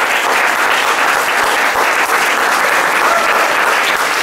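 Audience applauding steadily, a dense even clapping that follows the end of a tango dance.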